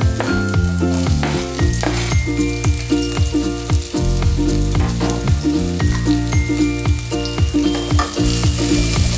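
Chicken feet frying and sizzling in a pan as the adobo cooks down dry, over background music with a steady beat and a moving bass line.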